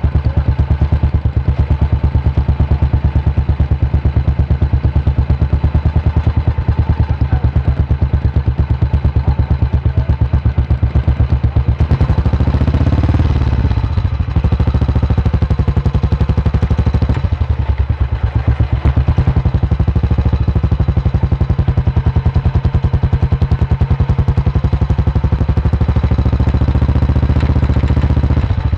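A vintage single-cylinder motorcycle engine running steadily under way with a fast, even pulse. Its note shifts in pitch a little after twelve seconds in, then settles again.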